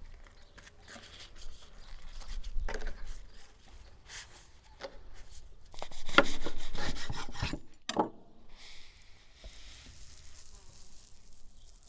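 Lavash flatbread rustling as it is rolled into a wrap, then a large chef's knife sawing through the wrap with a crackling crunch for about two seconds, ending in a sharp knock of the blade on the wooden cutting board.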